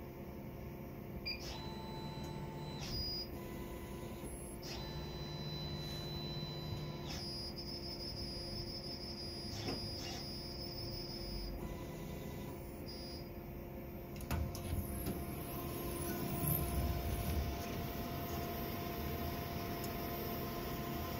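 Roland flatbed printer running: a steady fan hum, with its motors whining in passes a few seconds long. About fourteen seconds in come several clicks and some clatter of the printed parts being handled.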